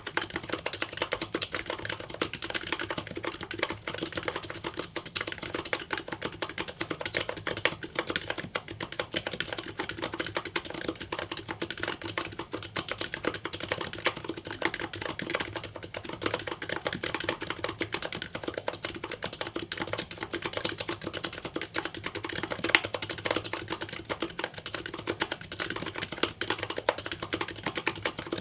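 Continuous fast typing on an aluminum-cased HHKB-layout Topre-style keyboard: MetaPulse MX slider switches on 50 g rubber domes, lubed housings and #5 silencing rings, under GMK keycaps, keystrokes tapping in a dense, unbroken stream.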